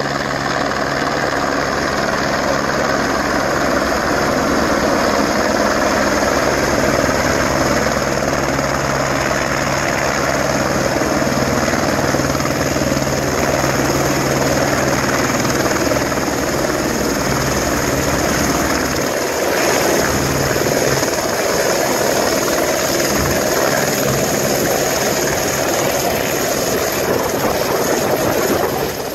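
Eurocopter AS350 AStar single-engine helicopter coming in to land: loud, steady turbine whine and rotor beat through the approach, hover and touchdown. The deepest part of the rotor beat weakens about nineteen seconds in.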